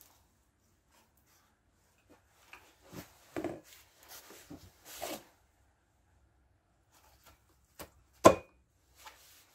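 Hands handling engine parts: a few light knocks and rubbing, then one sharp, much louder knock near the end.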